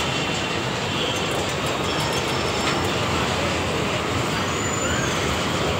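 Fairground dragon-train ride running along its track as it approaches: a steady rumble of the cars' wheels on the rails.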